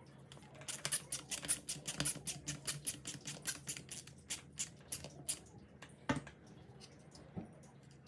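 Rapid run of small sharp clicks, several a second for about five seconds, then two louder knocks: hands working the small plastic parts of a disassembled turn signal switch.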